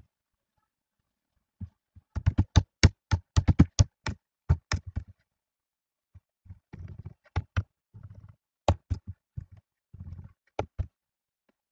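Computer keyboard typing: a fast run of key clicks from about two to five seconds in, then slower, scattered keystrokes with a few duller thuds.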